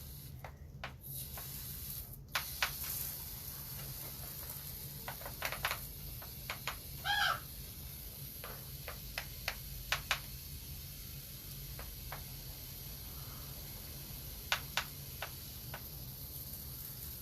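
Scattered sharp clicks from a hand spray bottle as a captive raptor is misted for a bath, with one short wavering bird call about seven seconds in.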